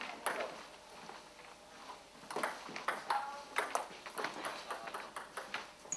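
Table tennis rally: the ball clicking sharply off bats and table, a hit or two at first, then coming quick and close together from about two seconds in.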